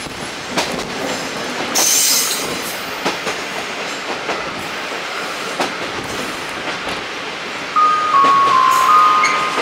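Passenger train running on the line, heard from aboard: steady wheel and rail noise with light rail-joint clicks, and a brief high wheel squeal about two seconds in. Near the end a chime melody of clear single tones begins.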